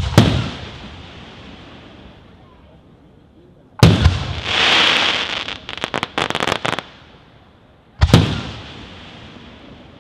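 Aerial firework shells bursting: three loud bangs about four seconds apart, each echoing away over a second or two. After the second bang comes a hiss and then a rapid run of crackles.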